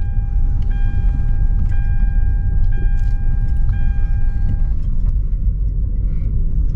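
Car cabin noise while driving slowly: a steady low road and engine rumble. A dashboard warning chime repeats about once a second and stops about two-thirds of the way through.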